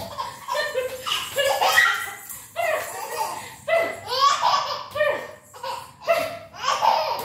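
A toddler laughing in a string of short, high-pitched bursts, about one a second.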